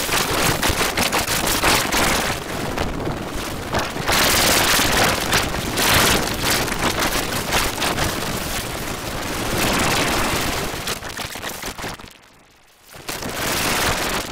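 Harsh, distorted crackling noise from a cartoon soundtrack mangled by audio effects, dense with clicks. It cuts out briefly about twelve seconds in, then comes back.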